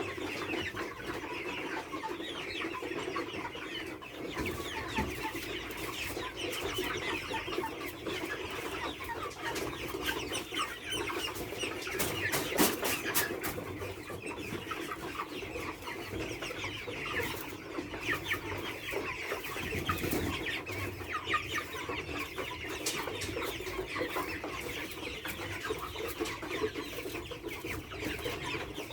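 A flock of chickens clucking and cheeping without a break in a poultry house, with a few sharp clicks about twelve seconds in.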